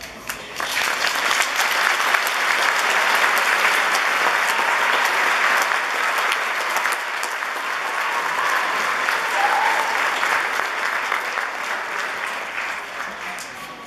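Audience applauding: many hands clapping together, swelling in about half a second in and slowly thinning out toward the end.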